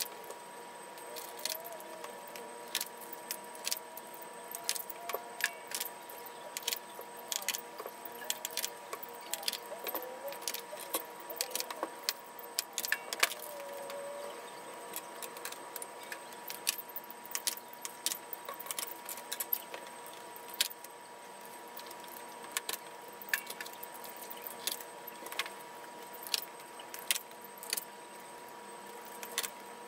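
Many quick, scattered clicks and taps of paper letters and cutouts being handled and pressed onto a bulletin board, over a steady faint tone.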